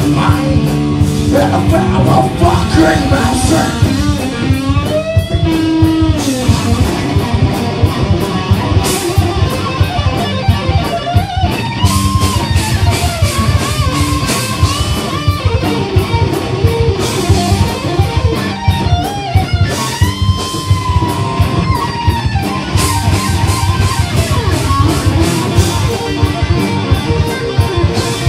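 Live heavy rock band playing loud: distorted electric guitar, bass guitar and drum kit, with a lead line that slides and bends in pitch at times.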